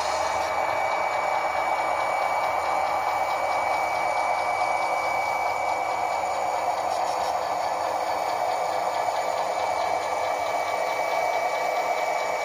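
Model diesel locomotives running along a model railroad track: a steady mechanical hum and rumble with a thin high whine held throughout and faint quick ticking.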